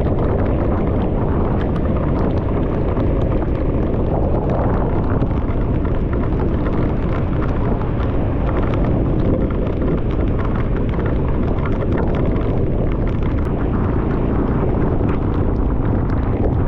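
Steady wind rushing over the microphone of a camera on a moving motorbike, mixed with the bike's running and road noise.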